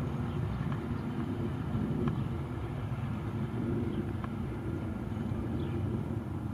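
Distant freight train rolling past, a steady low rumble that carries across open fields.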